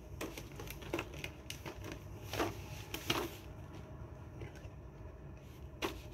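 Scattered sharp clicks and crinkles from scissors cutting and hands working a stiff clear-plastic blister pack on a cardboard toy card, the strongest crinkles about two and a half and three seconds in, with one more sharp click near the end.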